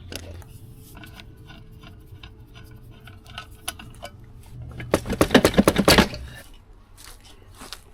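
Hand tools at work taking the exhaust pipe off a Yamaha YZ125 two-stroke dirt bike: scattered metal clinks and knocks. About five seconds in comes a loud second-long run of rapid clicking.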